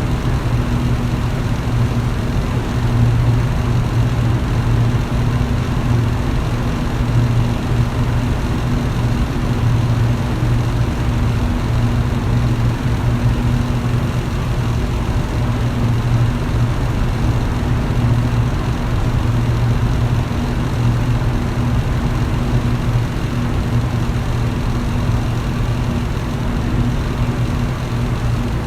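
Electric fan running steadily: a low, even motor hum over a constant rush of moving air.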